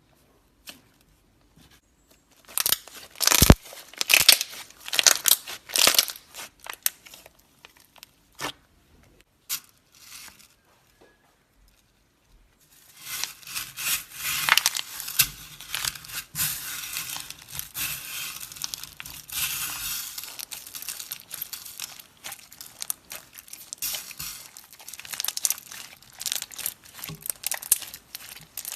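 Slime being worked by hand, giving sharp crackles and pops: scattered bursts for the first several seconds, then dense, continuous crackling from about halfway through.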